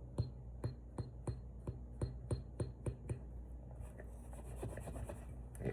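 Wiping the Glock 19 slide's lettering with a dry wipe to take off excess silver paint: light rubbing strokes against the metal, a tick about three times a second, easing into a soft swish near the end.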